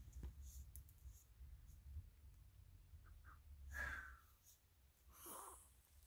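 Near silence: faint room tone with a few light clicks, and two soft, brief sounds about four and five and a half seconds in.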